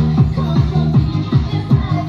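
Upbeat electronic dance music with a pounding kick-drum beat, about four deep kicks a second.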